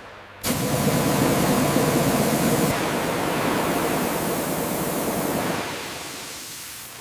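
A loud, steady rushing hiss that starts abruptly about half a second in and fades away after about five and a half seconds.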